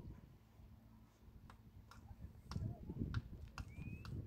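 Faint, scattered light clicks and knocks, with a low rumble building from about halfway and a short rising squeak near the end.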